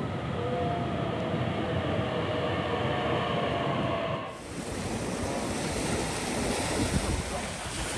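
A passenger electric train rolling slowly along a station platform, with a faint steady whine over its rumble. About halfway through it cuts off abruptly to a steady rush of sea surf.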